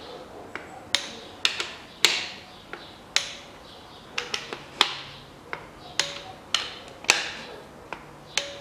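A click-type torque wrench tightening connecting rod cap bolts on an engine block: a string of sharp metallic clicks, irregularly spaced, one or two a second.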